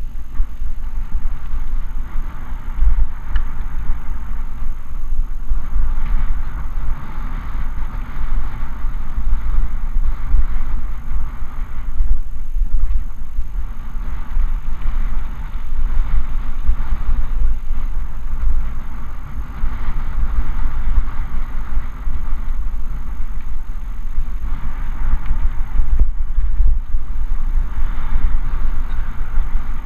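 Wind buffeting the microphone of a camera on a moving mountain bike, with the tyre and rolling noise of the bike on a dirt trail, swelling and easing every few seconds.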